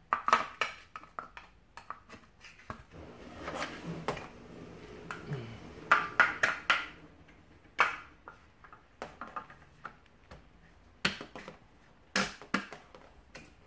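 Hard plastic rest pieces and a black metal-tube water-jug stand clicking and knocking together as the pieces are fitted onto the frame: irregular sharp clicks and taps, several in quick runs.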